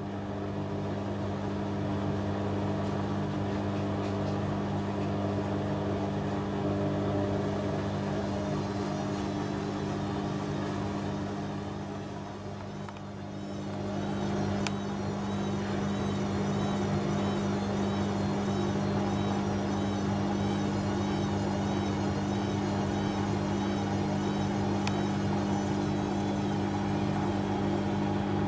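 Panasonic front-loading washing machine's drum motor turning the drum fast with a near-full load, a steady hum under a high warbling whine. It eases off briefly about halfway through, then picks back up.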